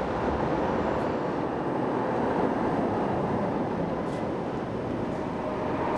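A tram rolling through an underground tram stop: a steady rumble of wheels on rails in the tunnel, with a few faint clicks.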